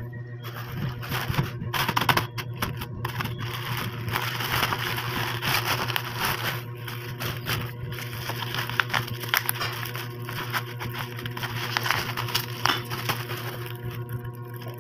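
Thin black plastic bag crinkling and crackling as it is handled and pulled off a small boxed perfume, in a dense run of irregular crackles.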